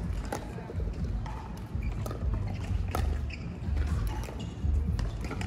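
Pickleball paddles striking balls on nearby courts: sharp pops every second or so over a low rumbling background.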